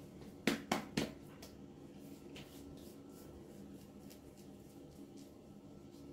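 Hands patting and slapping aftershave balm onto the face, three sharp slaps in the first second, then only faint light pats.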